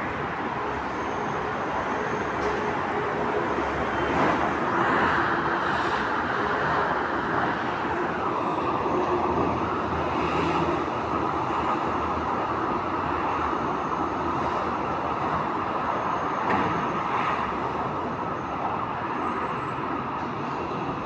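Alstom AS-02 metro train running, a steady rumble of wheels and motors heard from inside the passenger car.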